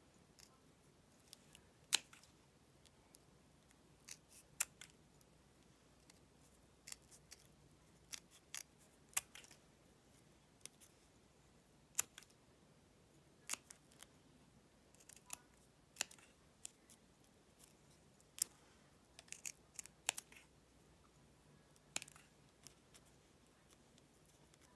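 Small craft scissors snipping a scrap of fabric: short, sharp snips at irregular intervals, some coming in quick runs of two or three.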